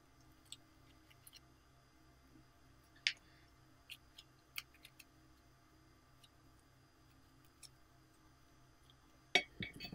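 Faint, scattered clicks and taps of a pencil scraping green glitter slime out of a small pot. A louder cluster of sticky clicks comes near the end as the slime is pulled and stretched by hand.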